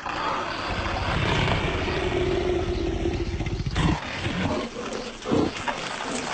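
A loud, rough animal roar that starts suddenly, runs on for nearly four seconds, then breaks into several shorter growls.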